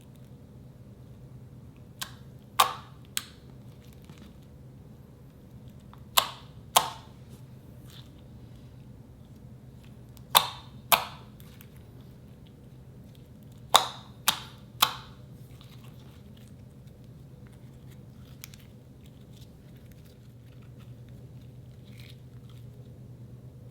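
Slime being pressed and worked by hand, giving sharp pops in groups of two or three about half a second apart, four such groups spread through the stretch, over a low steady hum.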